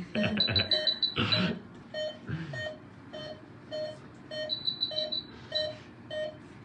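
Veterinary patient monitor beeping with the sedated wolf's pulse, a steady beep about twice a second, with a quick run of higher-pitched beeps near the middle. The even beeping signals a stable pulse.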